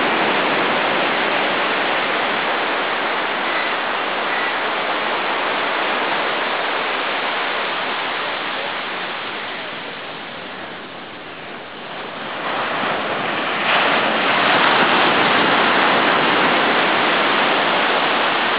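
Steady rushing sound of surf breaking on a sandy beach. It eases somewhat around the middle and swells up again a few seconds later.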